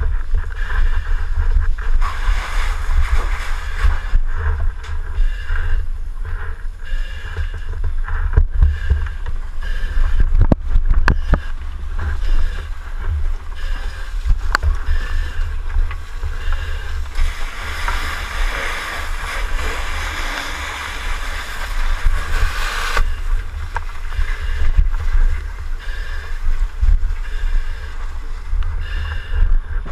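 Steady low rumble and rustling of handling noise on a firefighter's helmet-mounted camera moving through a burning building, with a few sharp clicks and a longer hiss about two-thirds of the way in.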